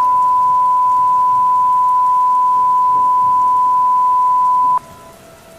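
Loud, steady single electronic alert tone at one high pitch, an Emergency Alert System-style beep. It holds for nearly five seconds and cuts off abruptly, leaving only faint noise.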